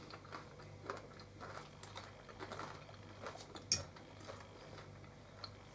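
Quiet eating with cutlery: scattered light clicks of forks and a knife against plates, with one sharper clink about two-thirds of the way through.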